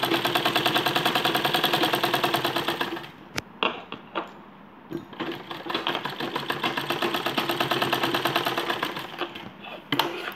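Domestic sewing machine stitching along a zip: a fast, even run of needle strokes that stops for about two seconds around three seconds in, with a few clicks, then runs again until near the end.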